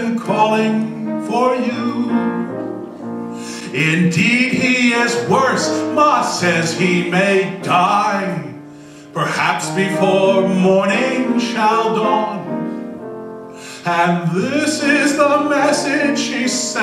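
A man singing a 19th-century temperance song with piano accompaniment, phrase by phrase with short breaths between lines.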